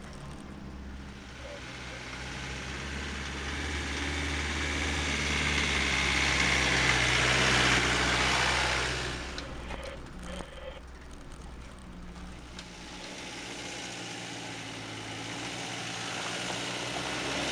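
Land Rover Defender 90's engine running at low revs as it crawls along a muddy off-road track, growing louder as it comes close. It falls away after about nine seconds, then rises again as the vehicle approaches.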